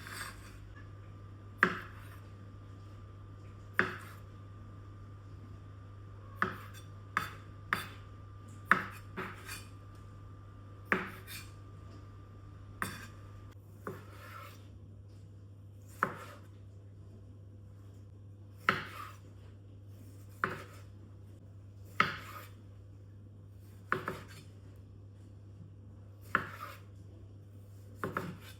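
Kitchen work: sharp single knocks and clacks of utensils on a cutting board and countertop, coming irregularly about one every second or two, over a steady low hum.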